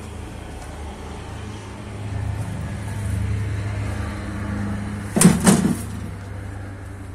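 Low steady rumble of handling noise as the camera is carried, swelling after about two seconds, with two loud knocks in quick succession a little past five seconds.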